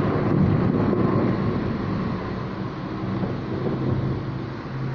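Thunder rumbling over heavy rain: the rumble is loudest at the start and fades slowly over a few seconds, above a steady hiss of rain.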